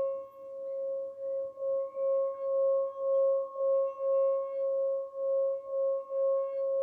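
Small metal singing bowl rimmed with a wooden mallet, singing one steady tone that swells and fades about twice a second as the mallet circles the rim.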